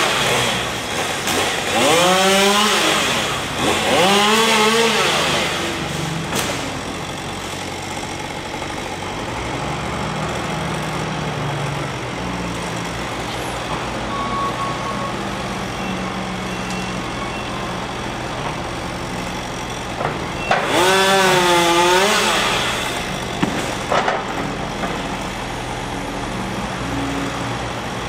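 Husqvarna two-stroke chainsaw revved in short bursts, its pitch rising and falling with each: three quick revs at the start and one longer rev about two-thirds of the way through. A steady low engine hum runs between the revs.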